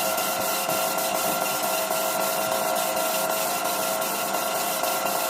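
A power tool running steadily, with a constant whine and a rasping, rubbing noise of work on a surface, ticking lightly about three times a second.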